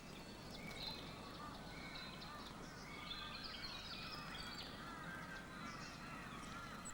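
Faint natural ambience of many small bird calls: short chirps and twittering notes overlapping steadily, with no single call standing out.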